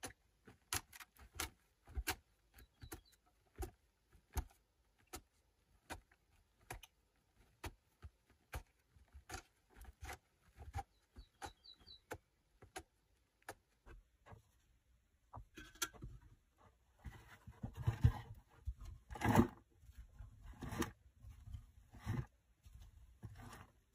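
A small hand pick chipping at a dry earth wall, sharp irregular knocks about one or two a second with crumbs of soil falling. About two-thirds through, this gives way to hands scraping up loose soil and clods, a denser rustling and scraping with a few heavier thumps.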